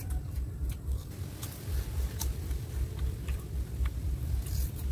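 Sugarcane rind being bitten and torn off with the teeth, giving scattered sharp cracks and snaps, over a steady low rumble.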